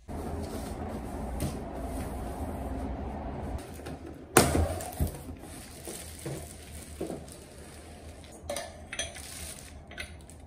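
Metal parts of an IKEA Ranarp work lamp being handled while it is unpacked and put together: a sharp knock about four seconds in, then scattered clicks and clinks.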